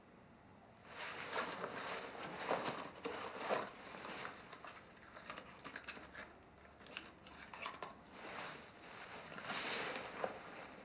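Rustling and crinkling of a cigarette pack being handled as a cigarette is pulled out, a run of small irregular crackles and scrapes that starts about a second in.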